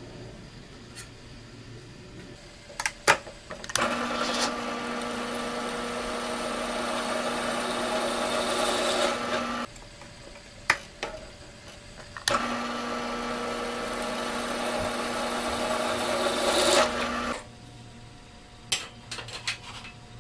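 Drill press running while drilling a steel bar, with a steady motor hum. It runs twice, for about five or six seconds each time, with a short pause between. Before and after come a few sharp metal clicks and knocks as steel parts are handled.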